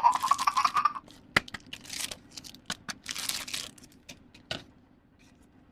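Close handling noises: a few sharp clicks and short crinkling, rustling bursts, with a quiet gap near the end.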